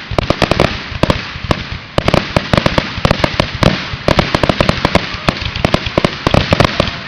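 Fireworks finale: shells bursting in rapid, overlapping succession, many booms and sharp cracks a second over continuous crackling.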